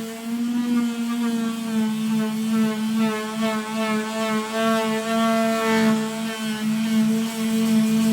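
Electric sander running continuously against the steel of a pickup truck bed, its motor humming steadily with the pitch wavering slightly as it is pressed on and moved over the panel.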